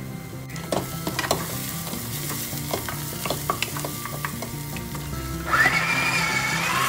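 Onions sizzling in a saucepan, stirred and scraped with a wooden spatula in irregular clicks and scrapes. About five and a half seconds in, a KAI electric food chopper starts up with a wavering motor whine as it chops cherry tomatoes.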